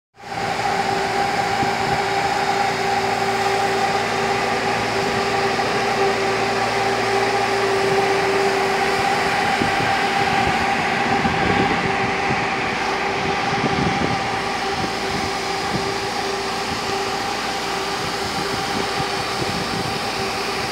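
Diesel-engine-driven fire pump running steadily under test, with a high-pressure water jet rushing from a hand-held fire nozzle; a steady hum with a constant tone over it.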